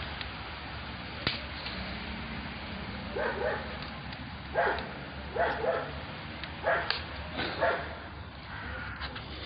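A dog barking: about seven short barks in loose bunches, starting about three seconds in.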